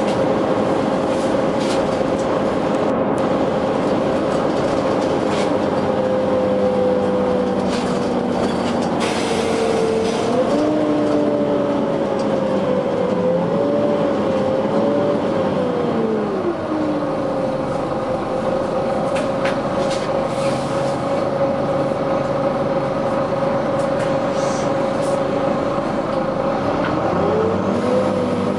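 Volvo B9TL bus running with its cooling fan loud, a steady tone with a lower hum beneath. About ten seconds in, and again near the end, the pitch rises and falls as the engine works. A few brief air hisses cut in.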